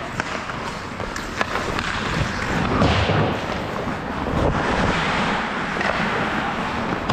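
Ice hockey skate blades scraping and carving the ice, heard up close from the skater's own camera, with a few sharp clacks in the first second and a half.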